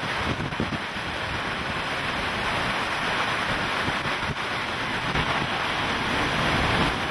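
Hurricane-force wind and driving rain blowing steadily, with gusts buffeting the microphone, at the edge of the hurricane's eye where the winds are strongest.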